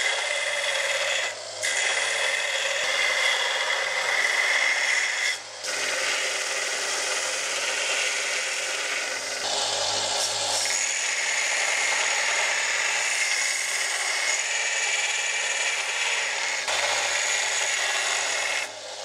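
Belt grinder running with a steel hammer head pressed against the abrasive belt, grinding its sides flat: a steady, loud grinding with a high whine. The sound drops out briefly twice in the first six seconds.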